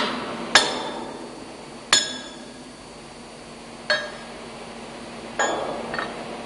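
Hammer blows on a metal tool, bending out the locking tab washers on the lock nuts of a ship's main-engine chain tightener bolt: about five sharp metallic clinks at uneven intervals, each with a brief ring.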